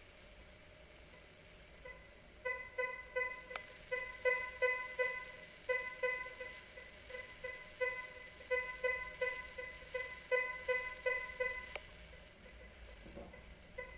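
Thracian MG 18 kHz metal detector sounding a run of short target beeps, about two to three a second, as a 0.03 g gold nugget is swept back and forth over the search coil: the detector is picking up the tiny nugget. The beeps start about two and a half seconds in and stop a couple of seconds before the end.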